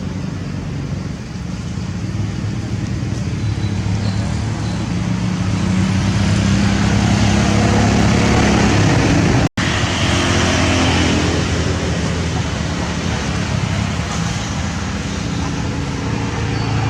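Steady low rumble of motor-vehicle traffic, swelling gradually, with a split-second dropout about nine and a half seconds in.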